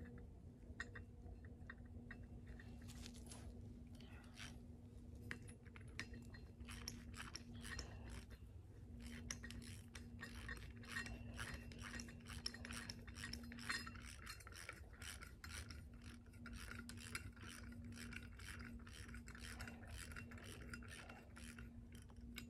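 Faint runs of quick metallic clicks and rasping from a ratchet wrench fastening a 4x4 post bracket onto the hex head of a ground anchor, with a low steady hum underneath.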